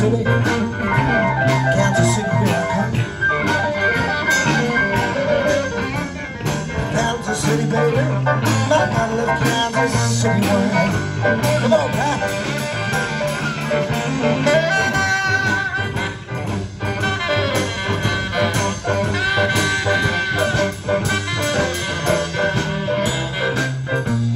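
Live rock 'n' roll band playing an instrumental passage: drum kit keeping a steady beat under a stepping bass line, with electric guitar, saxophone and electric keyboard.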